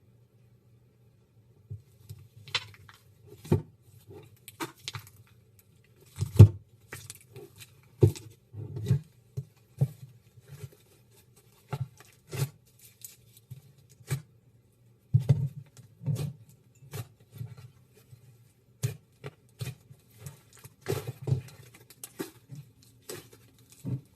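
Slime being squeezed and pressed by hand, making irregular sticky clicks and pops.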